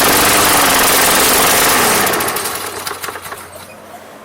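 Briggs & Stratton 190cc engine on a Craftsman push mower running on its cleaned carburetor, then winding down and stopping about two to three seconds in. The engine dies because a spring has come out.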